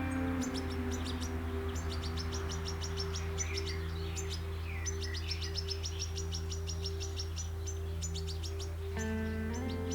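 A flock of greenfinches and goldfinches twittering, with rapid runs of short high chirps and a few slurred lower notes, over soft background music of held chords.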